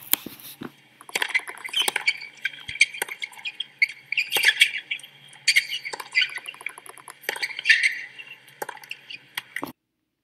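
Tennis rally on a hard court: sneakers squeaking in short chirps as the players change direction, with sharp pops of the ball off the racquet strings. Cuts off suddenly near the end.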